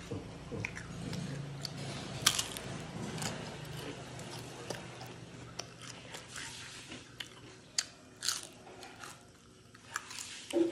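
Crisp kiping (thin fried rice wafer) glazed with latik coconut caramel being bitten and chewed close to the microphone: sharp crunches every second or two between quieter chewing.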